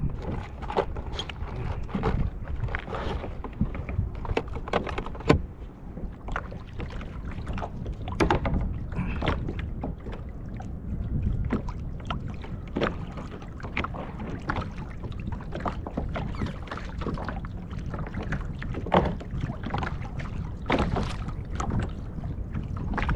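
Irregular knocks and clatter on a fishing kayak over a steady low rumble.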